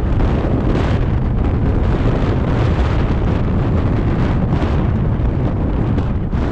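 Wind buffeting the camera's microphone: a loud, steady, fluttering rumble that covers everything else.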